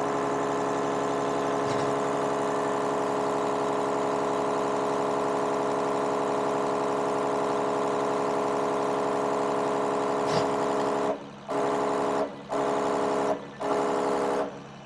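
Diesel injection pump test bench driving an inline injection pump at about 700 RPM, running with a steady mechanical hum of many even tones. Near the end the sound cuts out abruptly three times, each for a fraction of a second.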